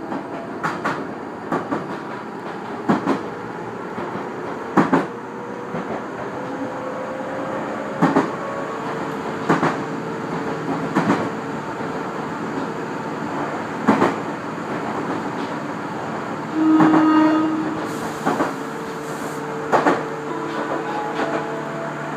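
Chichibu Railway express train running, heard from the driver's cab: the wheels click over rail joints, often in quick pairs, every second or two, over a steady running hum. About seventeen seconds in comes a short horn blast.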